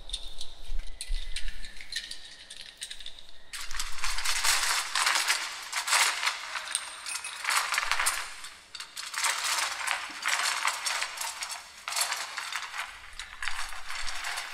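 Dense rattling and clinking sounds from a live sound-art performance, coming in swells that rise and fall every couple of seconds. It starts about three seconds in, after a quieter stretch with a low rumble.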